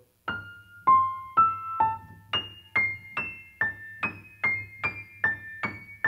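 A 9-foot German Steinway concert grand piano played one high note at a time, evenly spaced at a little over two notes a second. Each note is struck with an even tone and rings before the next. This is slow, even practice of a fast passage, hearing every note at a steady pulse.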